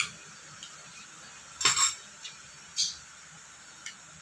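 A spoon and a small glass bowl clinking against the table and dishes: a click at the start, the loudest clinks about a second and a half in, another near three seconds and a faint one near the end.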